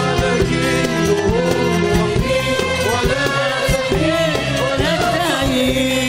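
An Arabic tarab orchestra plays an instrumental passage: a violin section carries an ornamented, gliding melody over a steady bass, with regular percussion strokes.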